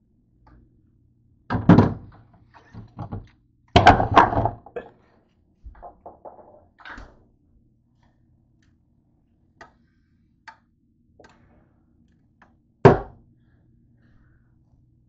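Thuds and knocks of hard objects being handled and set down. There are two loud clusters of bumps about two and four seconds in, lighter knocks after them, and one sharp single thud near the end.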